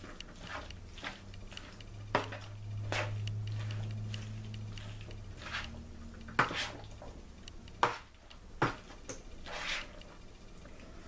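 A spoon stirring and folding macaroni salad of elbow macaroni, tuna and chopped egg in a mixing bowl: soft squishing, with a few sharp knocks of the spoon against the bowl. A low hum runs under it for a few seconds in the first half.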